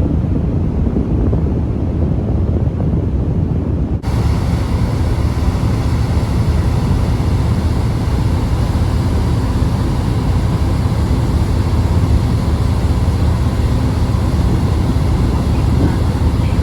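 Steady low rumble of a car ferry under way, its engines and hull drone mixed with wind and water noise. About four seconds in the sound changes abruptly to a fuller, even drone with a faint steady hum.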